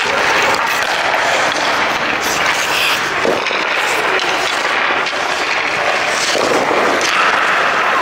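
Ice hockey practice on the rink: skate blades scraping the ice close by, with a scatter of sharp cracks from sticks striking pucks and pucks hitting the boards.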